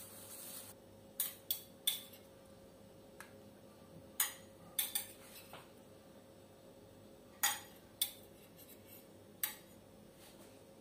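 A spoon clinking and tapping against bowls and a plastic container: about nine sharp, separate clinks, several of them in quick pairs, over a faint steady hum.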